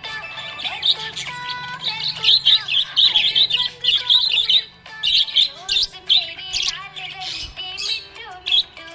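Budgerigar chattering in a dense run of rapid, high chirps and warbles, loudest in the first half.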